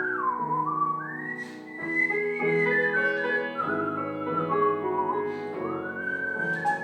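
A melody whistled over a piano accompaniment, its notes sliding smoothly from one pitch to the next.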